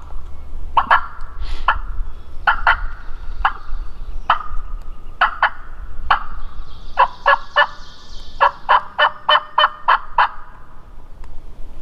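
Turkey yelping: short, sharp yelps, spaced out at first and then running into a quicker string of about a dozen near the end.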